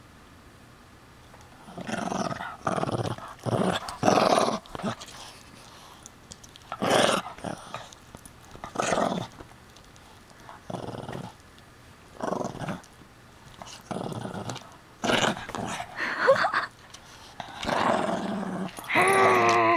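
Shih Tzu–pug mix puppy growling in repeated short bouts while holding its chew toy, guarding it from a hand trying to take it. Playful puppy growls rather than a serious threat.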